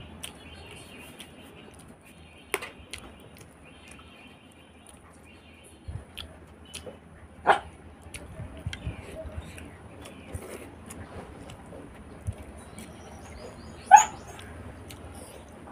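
A dog barks three times in short, sharp barks, about 2.5, 7.5 and 14 seconds in; the last is the loudest. Between them are the faint sounds of someone eating by hand: fingers mixing rice on a plate, and chewing.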